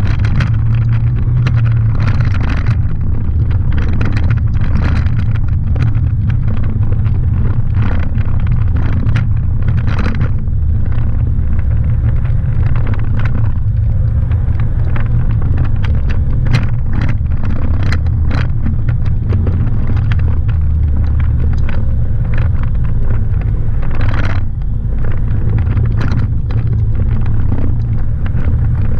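4x4 off-road vehicle driving along a rough gravel and dirt forest track: a steady low engine rumble with frequent knocks and rattles as it goes over the bumps.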